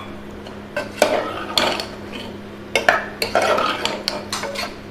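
Metal ladle stirring vegetables and water in a steel pressure cooker pot, with irregular clinks and scrapes against the pot.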